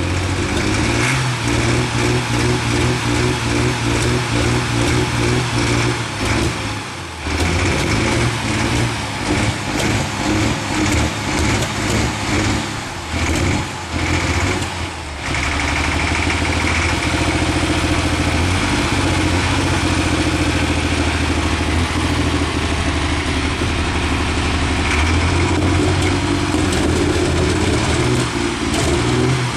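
Diesel super stock pulling tractor's engine running just after its first start of the season. It is loud and steady, with a few brief dips in the first half, then holds an even note.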